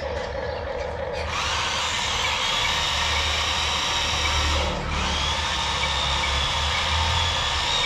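Electric drive motors and gearboxes of a radio-controlled tracked excavator whining as it drives. The whine starts about a second in, cuts out briefly near the middle and starts again.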